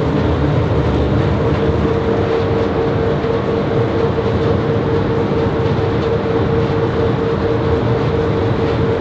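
Paint shaker machine running, shaking a can of paint: a steady mechanical rumble with a constant hum.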